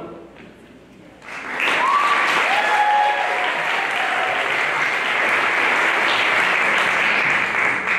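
Audience applauding, starting about a second in and stopping near the end, with a couple of brief cheers among the clapping.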